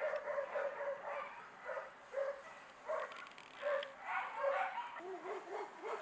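A dog whining, with a string of short, high yelps about once or twice a second and a wavering whine near the end.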